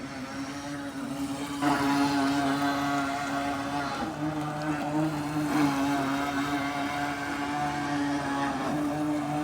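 RC boat motor running with a steady whine. It gets louder a little under two seconds in, and its pitch dips briefly about four seconds in before it holds steady again.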